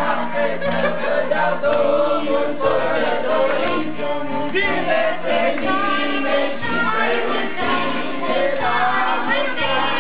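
A group of men and women singing a birthday song together, many voices at once, over a steady low beat.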